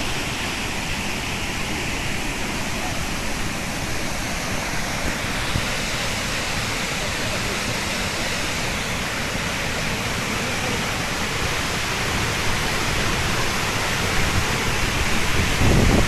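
Ouzoud waterfall's falling water, a steady even rush that swells a little louder near the end.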